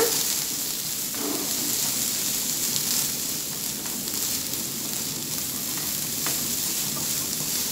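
Sliced onions sizzling in hot oil in a non-stick frying pan while being sautéed, with a steady hiss and a few light taps of a wooden spatula stirring them.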